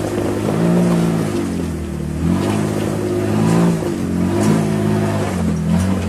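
Jeep Wrangler's engine revving up and down in repeated throttle blips, about four swells, as it crawls up a rock ledge.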